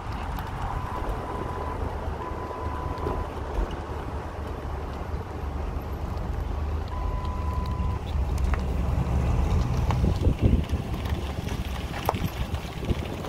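A car driving along a concrete runway: a steady low rumble of engine, tyres and wind through the open window. Wind buffets the microphone in the last few seconds.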